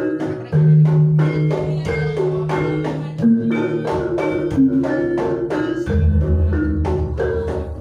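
Javanese gamelan accompanying a jaranan barongan dance: metal-keyed instruments struck in quick, even strokes in a running melody, with deep low notes coming in about half a second in and again near six seconds.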